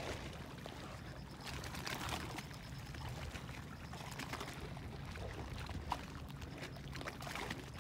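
Sea water lapping and splashing in small irregular splashes over a low steady rumble.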